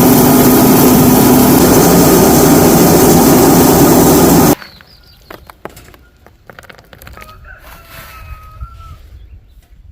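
Very loud clamour of farm animals calling all at once, cutting off abruptly about four and a half seconds in. Then quiet, scattered clicks and knocks, with a held pitched tone for a second or two near the end.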